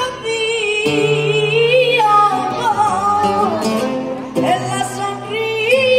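Flamenco singing of fandangos de Huelva with guitar: a voice holds long ornamented notes with vibrato over plucked and strummed guitar chords, with a fresh strum about one second in and again near the end.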